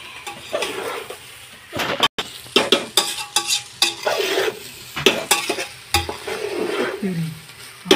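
A metal spatula scraping and knocking against the sides of a large aluminium pot as fried rice is stirred and tossed, with a light sizzle underneath. The strokes come in quick irregular runs, most of them from about two seconds in.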